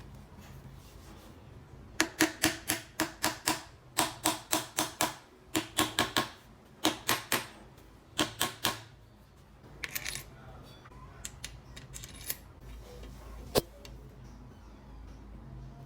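Runs of sharp metallic taps with a short ring, about four to five a second in groups, from about two to nine seconds in; then scattered lighter clicks and one sharp click near the end. The sound of metal tools working on scooter engine parts.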